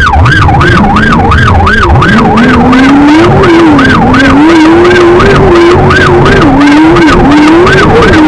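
Race car's electronic warning siren warbling rapidly up and down over the car's engine, the kind off-road racers sound to warn a slower car when passing. The engine note climbs about two seconds in, then rises and falls with the throttle.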